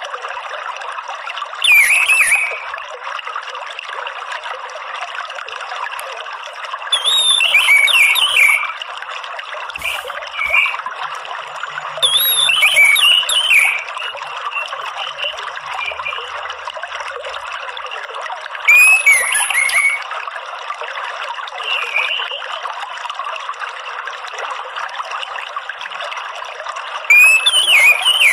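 Orange-headed thrush giving short chattering, twittering phrases about every few seconds over a steady sound of running water: a lure and therapy track played to caged birds to set them singing.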